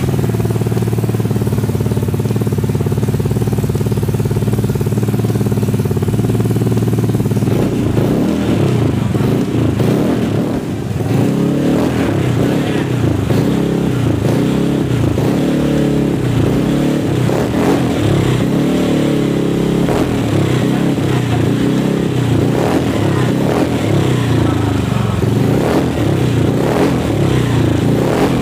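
Vespa Sprint 150 scooter's single-cylinder four-stroke engine, freshly bored up with an oversize piston, running on a replacement fuel injector. It idles steadily at first, then from about eight seconds in it is revved up and down again and again with the throttle.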